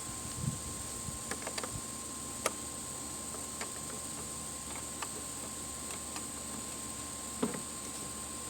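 Scattered light metallic clicks and taps at irregular intervals, from a wrench working loose the positive battery terminal clamp, over a steady faint hiss.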